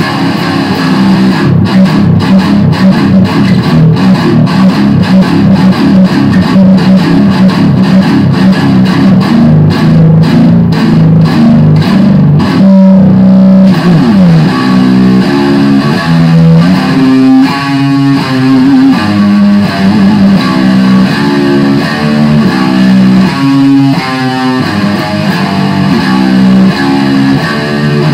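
Heavily distorted electric guitar, an Epiphone SG Special through a Line 6 Spider III amp, playing improvised heavy metal. It opens with a fast, even riff of repeated picked notes, slides down in pitch about halfway through, then moves into single-note lead lines with some held notes.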